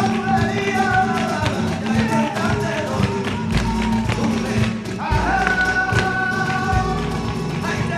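Live flamenco music for bulerías, with quick, sharp percussive taps over the melody and a long held note about five seconds in.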